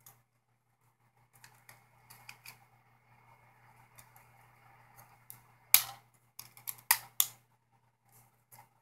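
Metal front cover of a Canon PowerShot A70 being slid and pressed onto the camera body: faint handling rustles, then four sharp clicks between about six and seven seconds in.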